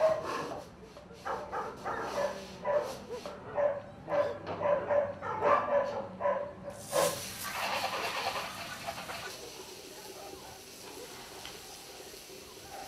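Dogs in kennels barking again and again, in short overlapping barks, for about the first seven seconds. About seven seconds in a loud hiss starts and fades over a couple of seconds.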